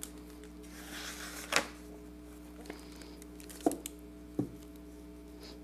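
Hardcover picture book being closed and stood upright: a brief rustle of paper, then three sharp knocks from the boards and cover. A faint steady electrical hum runs underneath.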